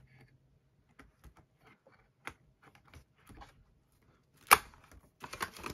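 Plastic pocket pages of a card binder being handled: scattered light clicks and crinkles of the sleeves, one sharper click about four and a half seconds in, and a quick run of clicks near the end.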